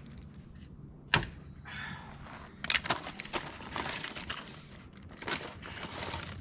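A single sharp snap about a second in, as a pipe cutter cuts through a half-inch water line. It is followed by scattered clicks and rustling as parts are handled.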